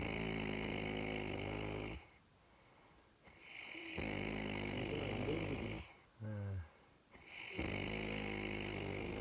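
A man snoring: three long snores of about two seconds each with quiet pauses between them, and a short snort just before the third.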